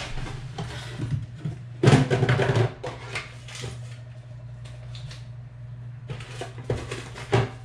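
Rustling and clattering of a blue lidded canister being opened and its contents handled, with the loudest rustle about two seconds in and another stretch near the end, over a steady low hum.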